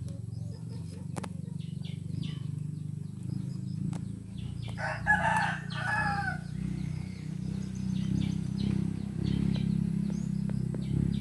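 A rooster crows once, about four and a half seconds in, a call lasting about a second and a half, over a steady low rumble.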